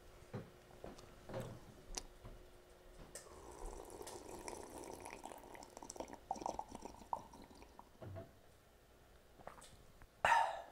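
Sipping and slurping a drink from a plastic cup for a few seconds, after a few small clicks. Near the end comes a short, loud, breathy sound.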